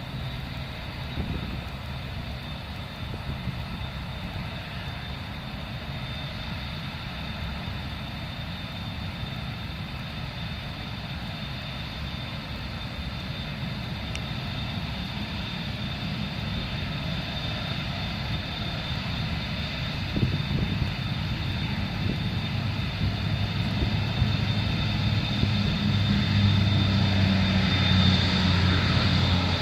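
Airbus A380 jet engines running: a steady high whine over a low rumble, with the rumble growing louder over the last ten seconds as the aircraft nears or powers up.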